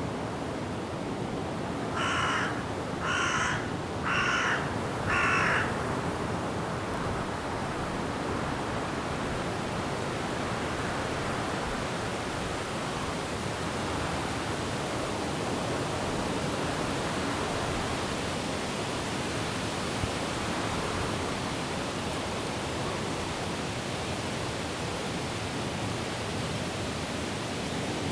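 Steady rain and wind in forest trees. Near the start, a bird gives four short calls about a second apart.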